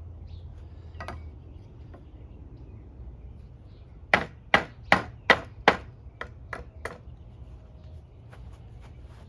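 Batoning: a wooden stick knocks sharply on the back of a multi-tool knife blade to drive it through wood. There are five loud blows about two and a half a second apart, starting about four seconds in, then three lighter taps.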